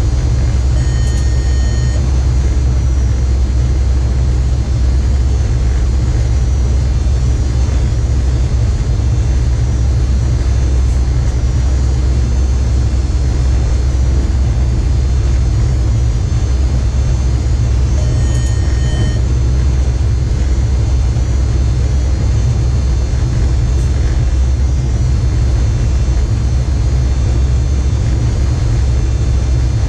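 Steady low rumble of an electric train running at speed, heard from inside the driver's cab. A short electronic beep from the cab equipment sounds about a second in and again about 18 seconds in.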